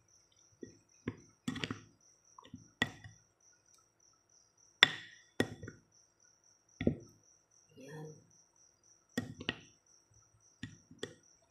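Plastic spoon knocking and scraping against a bowl while mashing and stirring soft papaya with milk, in about a dozen irregular clacks. A steady, rapidly pulsing high chirp runs in the background.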